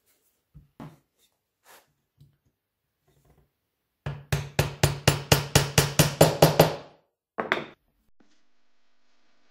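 A steel hammer tapping a glued wooden rod into a drilled hole in a pine board: a quick run of about fourteen blows at about five a second, then one more strike. A few light knocks come earlier as the glue bottle and rod are handled.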